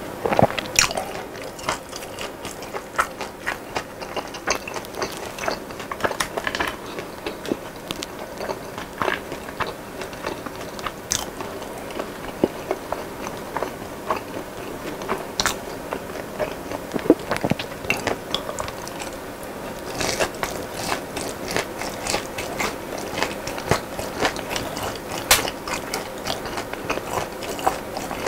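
Close-miked chewing of crispy fried chicken glazed in sauce: a run of irregular crunches and crackles with wet mouth sounds.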